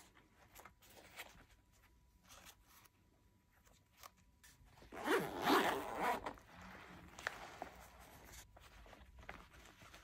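Zipper of a Maxpedition Fatty Pocket Organizer pouch pulled open about five seconds in, the loudest sound, with light clicks and rustles of handling before it and fabric rustling after it as the contents come out.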